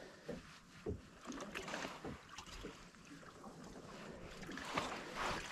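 Wind and sea noise aboard a fishing boat, with scattered light knocks and rustles of handling; the wind noise swells near the end.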